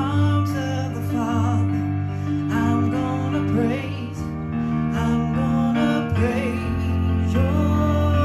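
Electronic keyboard playing a slow song in held chords, with a woman singing a wavering melody over it.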